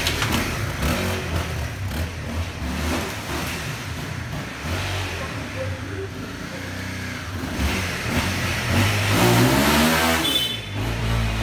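Honda dual-sport dirt bike's single-cylinder four-stroke engine running low and steady, then revving up and back down near the end.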